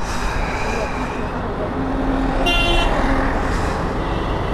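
Steady wind and road noise from riding a motorcycle, with a short horn toot about two and a half seconds in.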